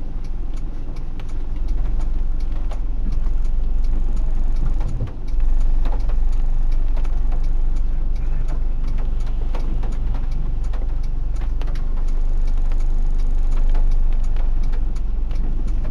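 Low, steady rumble of a Honda Odyssey minivan's engine and road noise, heard from inside the cabin as it moves slowly, with many sharp raindrop ticks on the windshield and roof.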